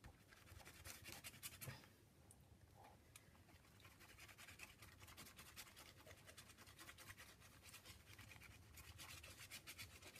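Faint rubbing and scratching of a hand smearing and blending wet paint across a paper journal page.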